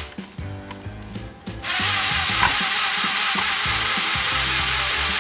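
Motorized rotors of a Lepin 20002 brick-built heavy-lift helicopter, a copy of LEGO Technic 42052, running: a loud, steady, hiss-like whir that starts abruptly about a second and a half in and stops abruptly, over background music.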